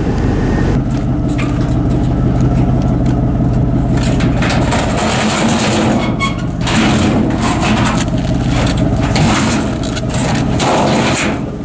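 1989 Ford F-150 pickup running, a steady engine drone with rattling and knocking, the knocks thicker in the second half.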